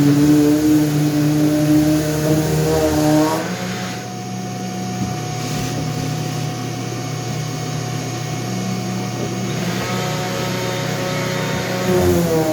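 Power tool motor running steadily. About three seconds in its pitch rises and it drops away to a quieter hum; near the end its pitch falls and it comes back loud.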